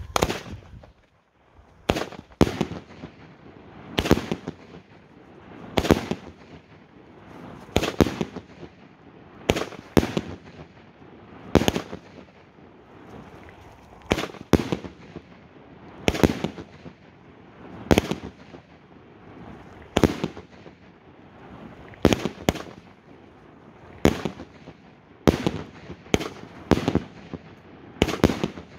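A 38 mm F3 firework battery, a Funke Gigant Palms cake, firing shot after shot: a sharp bang about every two seconds, a few coming as quick doubles, with a lower crackling hiss from the burning effects between the bangs.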